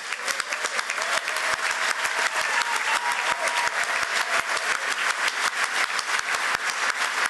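Audience applauding: many hands clapping steadily, swelling over the first second.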